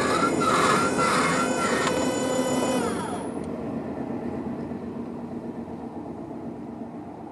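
Electric level-crossing barrier motors (Nippon Signal MWF II-D) raising the gate arms after the bell stops: a steady whir that winds down in pitch and cuts off about three seconds in. A rumble from the passed train then fades away.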